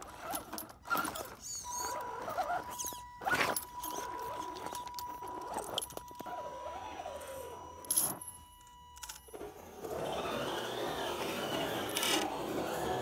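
Axial SCX10 RC crawler truck working over rock: its electric motor and drivetrain give a steady high whine for several seconds. Sharp clicks and knocks come from the tyres and stones on the rock, and there is gritty scraping near the end.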